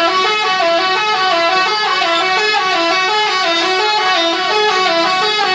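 Bus telolet horn, an Indonesian musical multi-tone air horn, playing a quick tune: several horn tones sound together and step up and down in pitch about four times a second.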